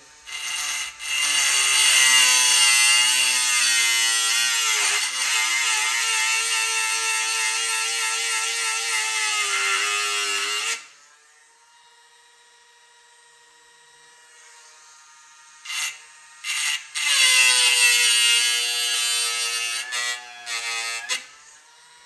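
A high-speed electric rotary tool whines in two runs, one of about ten seconds and, after a pause and two short blips, one of about four seconds. Its pitch sags each time it bites into the work.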